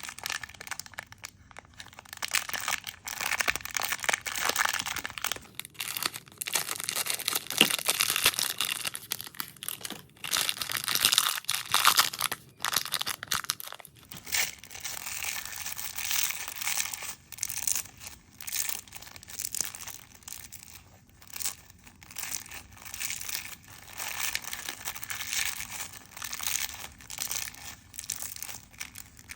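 Foam slime being squeezed and kneaded by hand, giving a continuous irregular crackling and crinkling that comes in waves, louder through the first half.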